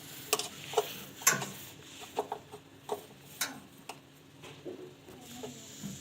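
Irregular short clicks and knocks of hands working on a washing machine's plastic shock absorber parts, several sharp taps about a second apart.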